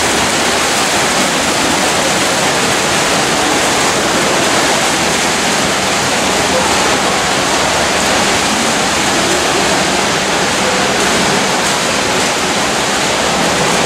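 Steady, loud splashing din of several swimmers racing front crawl in an indoor pool.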